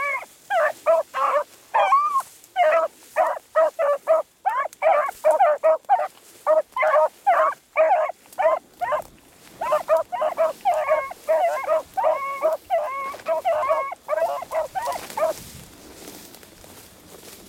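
Beagles baying on a rabbit's trail: a rapid string of short, loud hound bays, several voices overlapping at times, that falls off near the end.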